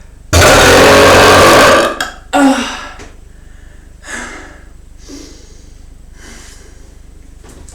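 A man's belch of gulped air, long and deep, lasting about a second and a half and loud enough to distort, followed by a second, shorter belch and then a few breaths.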